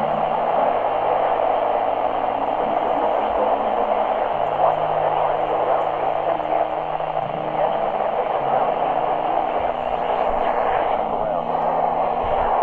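Loud, steady static hiss from a weather-radio broadcast, with a low hum underneath that shifts pitch a few times; the signal is weak and the alert voice is lost in the noise.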